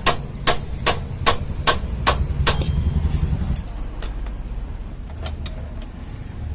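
Hammer blows in a steady rhythm, about two and a half a second, seven strikes that stop about two and a half seconds in, followed by a low rumble.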